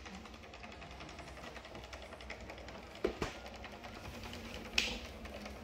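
Faint, rapid, even mechanical ticking, with a short knock about three seconds in and a brief hiss near the end.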